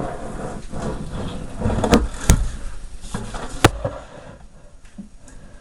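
Plastic mini-fridge housing being handled and turned over during disassembly, with rumbling handling noise and three sharp clicks or knocks about two to three and a half seconds in, quieter toward the end.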